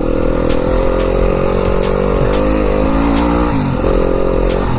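Enduro dirt bike engine running at steady revs. About three and a half seconds in the throttle eases off and the pitch drops, then it picks up again.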